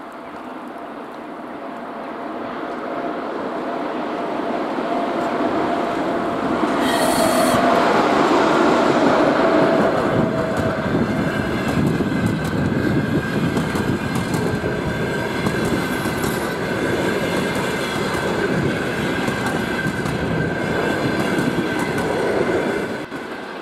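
A ChS4 electric locomotive hauling a passenger train past, getting louder as it approaches; a steady whine from the locomotive is heard until it goes by, with a brief shrill burst about seven seconds in. Then the coaches roll past with wheel clatter and a steady high-pitched wheel squeal.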